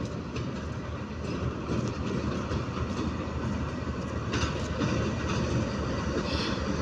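GE U20 diesel locomotive's engine chugging steadily with a heavy low rumble, growing a little louder about four seconds in.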